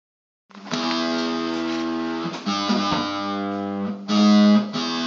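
Guitar music: ringing chords that begin about half a second in and change every second or two.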